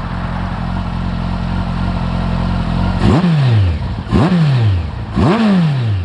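Campagna T-Rex 14R's Kawasaki ZX-14R inline-four idling through Jardine RT5 slip-on exhausts. About halfway in it is revved three times, about a second apart, to around 4,000–5,000 rpm, each rev rising quickly and dropping straight back to idle.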